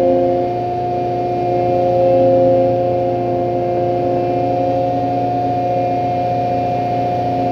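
Bobcat skid-steer loader's engine running steadily under load, heard from the operator's seat, with a steady whine over it and a brief swell about two seconds in.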